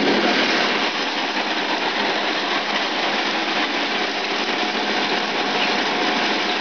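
Groundnut sheller running steadily: an even, dense mechanical noise from its shelling drum and fan that does not change.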